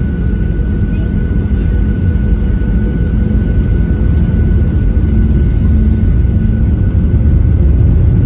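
Cabin noise of a Boeing 737 airliner: a dense, steady low rumble of jet engines and airflow with a faint steady whine above it, growing slightly louder over the few seconds.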